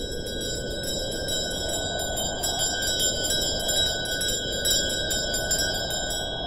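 Sleigh bells jingling rapidly and steadily with a ringing tone, over a continuous rushing noise.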